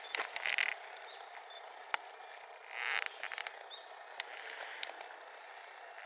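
Outdoor ambience: a steady hiss with scattered light clicks, and two short rustles about half a second and three seconds in.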